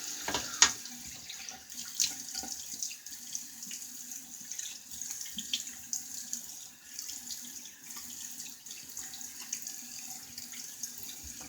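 Bathroom tap running into a sink while water is splashed on the face to rinse after a shave, with sharp splashes about half a second and two seconds in. The running water stops abruptly at the very end.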